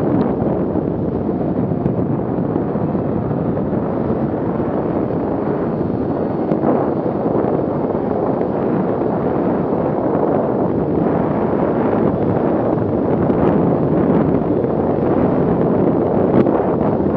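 Steady wind rush on the microphone of a moving snowmobile, mixed with the running of a 2017 Arctic Cat M8000's two-stroke engine and track.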